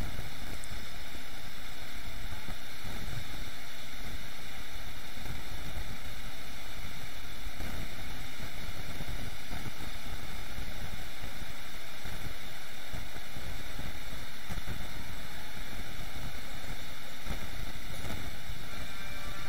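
Steady rushing noise with a fluttering low rumble: air buffeting the microphone.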